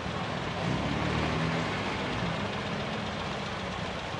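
Classic MG sports car's four-cylinder engine running slowly at low revs, a steady low idle over a background of outdoor crowd noise.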